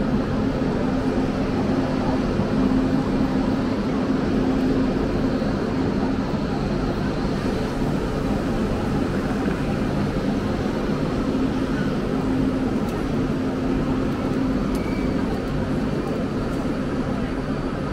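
Steady rumble and hum of a busy railway station hall, with a faint murmur of voices.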